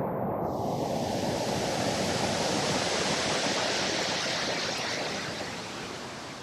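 Heavy rushing water from a waterfall in flood: a dense, steady wash of noise. Its hiss brightens about half a second in and eases off near the end.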